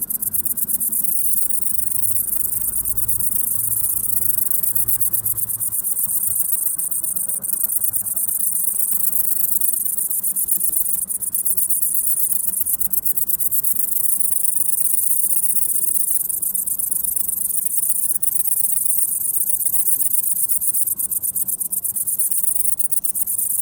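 Great green bush-cricket (Tettigonia viridissima) stridulating: a loud, continuous, very high-pitched buzzing song made of rapid pulses.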